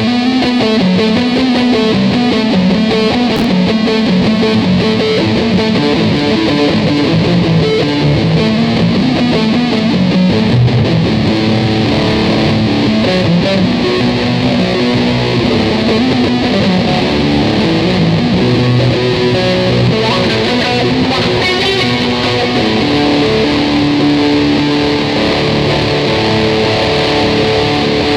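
Ibanez electric guitar played continuously, a loose improvised run of changing notes and strums.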